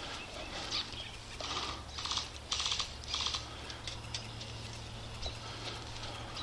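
Faint short bursts of airsoft gunfire, a rapid clicking rattle, about five bursts in the first half, then only faint clicks.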